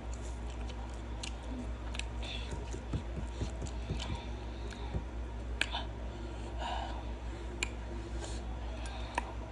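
Close-up chewing and mouth sounds of someone eating saucy noodles, with a few sharp clicks of a plastic fork against a glass dish, over a steady low hum.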